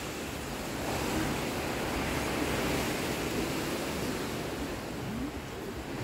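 Steady rush of sea waves mixed with wind on the microphone.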